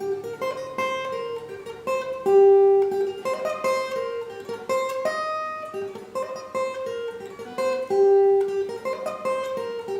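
Acoustic guitar played alone: single picked notes ringing one after another in a slow melodic pattern.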